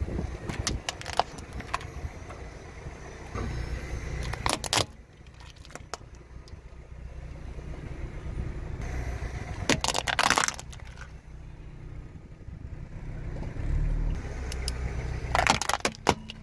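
A car tyre rolling over and crushing plastic toys, a toy guitar and a toy tool set, with several clusters of sharp plastic cracking and snapping. The car's low rumble runs underneath, and the loudest cracking comes about ten seconds in and near the end.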